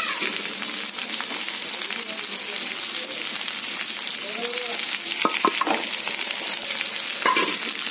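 Chopped okra sizzling as it fries in hot oil in a kadhai: a steady hiss, with a few sharp clicks about five seconds in and again near the end.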